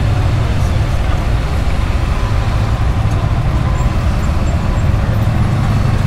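Steady low rumble of golf carts and side-by-side utility vehicles driving past.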